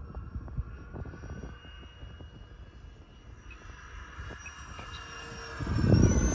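Radio-controlled model jet's motor whining steadily, the whine rising in pitch near the end, with wind buffeting the microphone and a loud gust of wind rumble about six seconds in.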